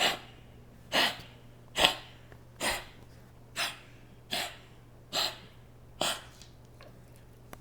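Beagle with bronchitis coughing and wheezing: a run of eight short, harsh hacks, about one a second.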